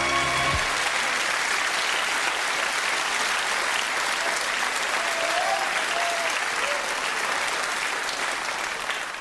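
Studio audience applauding, a steady patter of clapping; the last note of music stops within the first second, and the applause fades out near the end.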